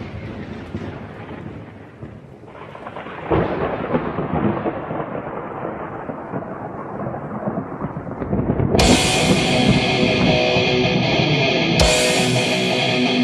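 Rolling thunder rumbles, fades, then swells again in a second long peal. About nine seconds in, heavy metal music takes over with sustained distorted guitar chords.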